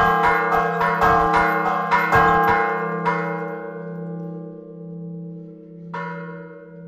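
Church bells rung in a rapid repique, struck several times a second. The strikes stop about three seconds in and the bells hum and die away, with one more strike about six seconds in.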